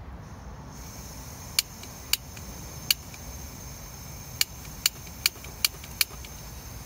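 Gas hissing steadily from an OEX canister stove's burner from about a second in, with eight sharp clicks of its igniter spread over the next few seconds as it fails to light. The owner suspects the cold is making the gas canister temperamental.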